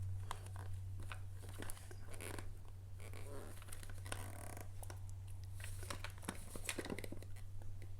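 Plastic picture puzzle box being twisted by hand: scattered light clicks and rattles as its rotating sections turn, over a steady low electrical hum.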